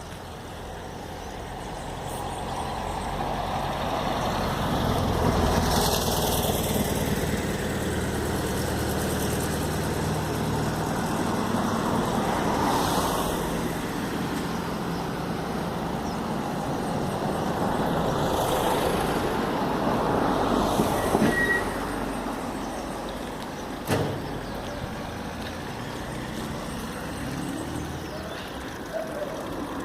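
Road traffic passing near an urban river: vehicles swell up and fade away every several seconds over a steady rush of noise, with a sharp knock about 24 seconds in.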